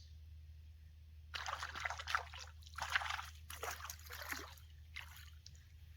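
Water splashing in a string of short, uneven bursts from a small hooked bass thrashing at the surface as it is reeled in, starting about a second in and dying away near the end.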